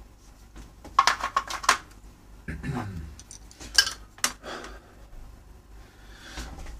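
Small metal tools and parts clinking on a workbench: a quick run of clicks about a second in, a short scrape, then a couple of sharp single knocks near the middle.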